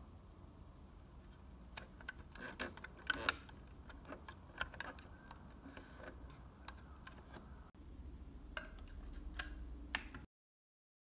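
Faint small clicks and taps of hard plastic as a chrome plastic grille is handled and pressed into place on a scale-model Ford F-150 pickup, the loudest click about three seconds in. Near the end there is a soft rolling rustle as the model is pushed along a wooden table, and then the sound cuts off.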